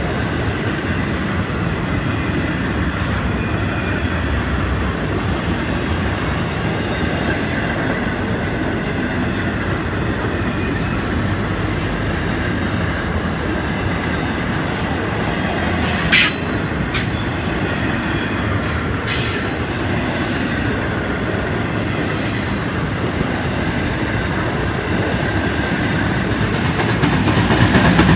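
Intermodal freight train's cars rolling past at close range: a steady rumble and rattle of wheels on the rails, with screeching brakes squealing over it. A single sharp bang about 16 seconds in, and the noise grows a little louder near the end.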